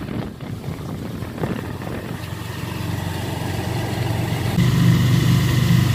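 Engine of a small open-sided passenger vehicle, heard from inside the cabin, running steadily and getting louder, with a step up about four and a half seconds in as it picks up speed.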